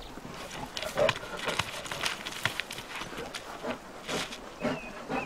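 Grizzly bear and wolf in a short confrontation: a few brief grunts and growls among clattering of rocks, over the steady rush of a river.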